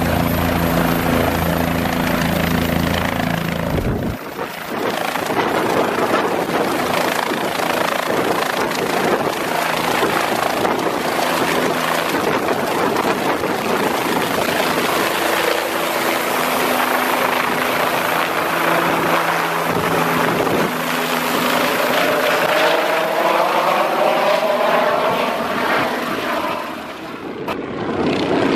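Bell 407 helicopter's single turboshaft engine and main rotor running at high power, with steady humming tones for the first four seconds. It then gives way to loud, dense rotor noise as the helicopter lifts off and passes overhead, with sweeping, wavering tones near the end as it flies away.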